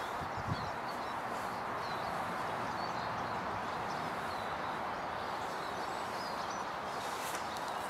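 Faint songbirds chirping over a steady outdoor hiss, with a single short knock about half a second in and some brief rustling near the end.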